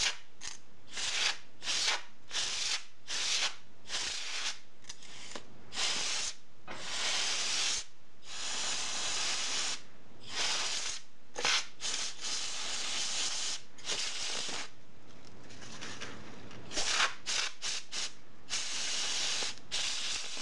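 Can of compressed air spraying through its straw in many short hissing blasts and a few longer ones of a second or two, blowing dust out of a keyboard frame.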